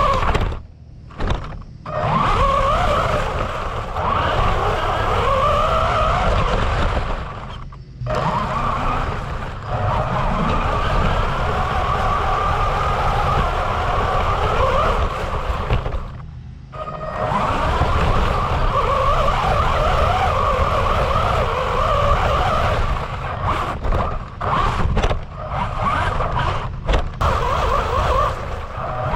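Electric drive motor and gears of a 1:14 scale RC monster truck whining as it is driven. The pitch rises and falls with the throttle, and the whine cuts out sharply several times when the throttle is let off, over a low rumble.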